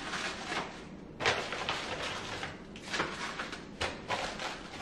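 Kitchen handling sounds of groceries being put away: a handful of short knocks and rustles, with a cupboard door closing.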